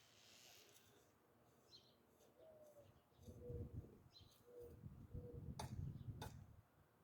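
Faint bird calls: scattered high chirps and several short low notes, over a low rumbling that starts about halfway through, with two sharp clicks near the end.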